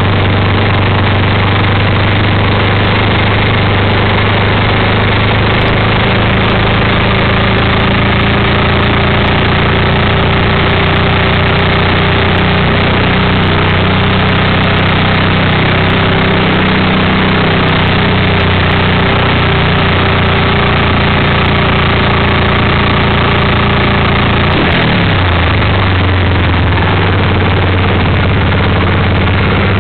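Vintage flat-track racing motorcycle engine running hard through laps, heard loud and close from a camera mounted on the bike. Its pitch wavers through the middle and dips sharply about 25 seconds in before picking back up.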